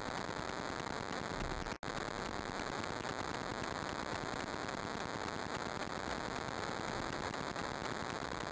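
Steady static hiss from electrical interference on a camera's audio, with a momentary dropout to silence about two seconds in, where the recording skips.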